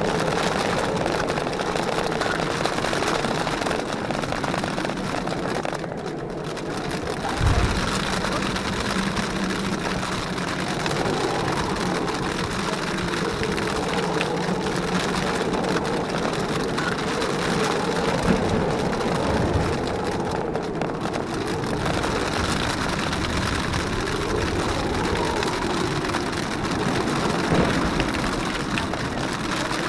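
Jeep Wrangler JKU's engine running as it drives slowly over a wet gravel trail, under a steady rush of wind and rain noise. A single low thump comes about seven seconds in.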